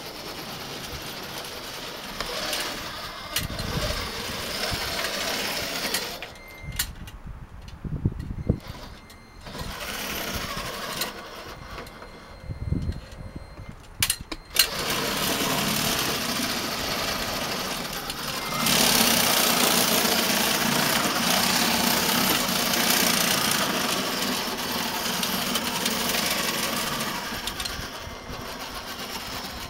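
Small motors and gearing of a radio-controlled Tonka Cranemaster cable crane running as it crawls on its tracks, with several sharp clicks and knocks in the first half. The running gets louder about halfway through and stays loud.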